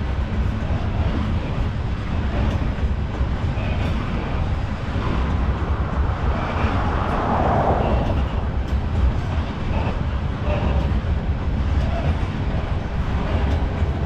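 Freight train of tank cars rolling past: a steady rumble of steel wheels on rail, with scattered faint clicks and a brief swell in the middle.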